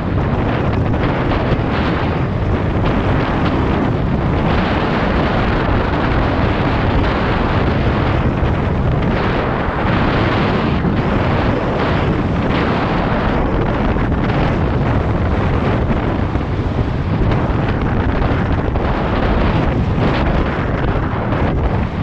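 Wind buffeting the built-in microphone of a GoPro Hero 7 Black while cycling: a loud, steady rushing that swells and dips unevenly.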